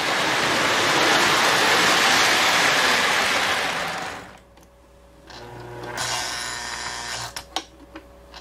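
Model diesel train running on the track with a steady rattling whir of motor and wheels, dying away about four seconds in as it is stopped. A low hum follows, then a few sharp clicks near the end as the locomotive's directional unit is cycled to reverse.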